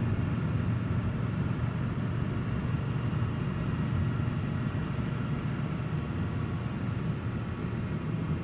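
Car driving slowly: a steady, low rumble of engine and tyres.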